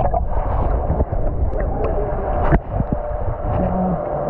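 Water sloshing and rumbling around a GoPro camera in a wave pool, heard muffled through the camera, with one sharp knock about two and a half seconds in.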